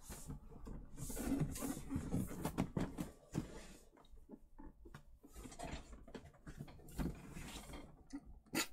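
Large cardboard statue box being handled: irregular scraping, rustling and light knocks, busiest in the first few seconds, with a sharp click near the end.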